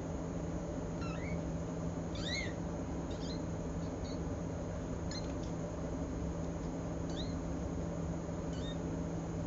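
Young kittens giving short, high, squeaky mews, about eight or nine scattered through, over a steady low hum.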